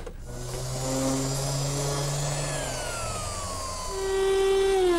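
Compact laminate trimmer router with a 1/4-inch roundover bit running as it rounds over the edge of redwood trim. Its pitch drops partway through, runs louder near the end, then starts to wind down in pitch.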